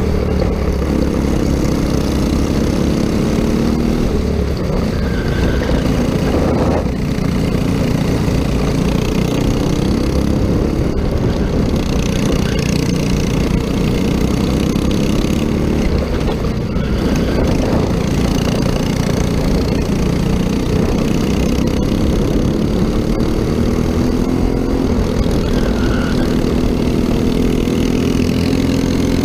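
Racing kart engine at high revs heard from onboard, with its pitch dropping and climbing again a few times as the throttle is lifted for corners and reapplied.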